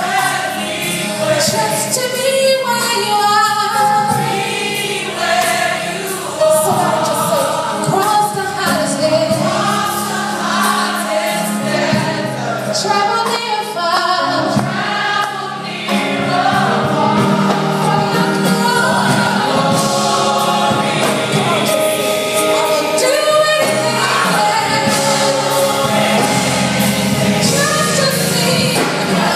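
Women's gospel choir singing, the sound growing fuller and steadier from about halfway through.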